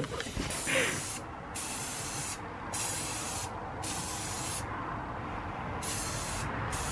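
Aerosol spray-paint can sprayed in about five short bursts with brief pauses between. It is coating bare metal on the inner fender lip of a Mini Cooper S, where a broken control arm rubbed through the paint, to stop rust.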